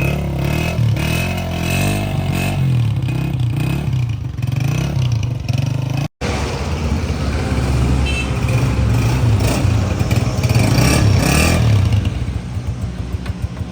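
Honda CG 125 motorcycle's single-cylinder four-stroke engine running, a brand-new bike, getting a little louder for a couple of seconds near the end; the sound drops out for an instant about six seconds in.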